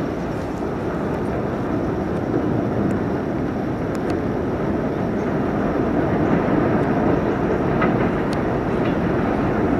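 New York City Subway 2 train running on an elevated steel structure: a steady rumble of wheels on the rails that grows gradually louder as the train approaches, with a few faint clicks.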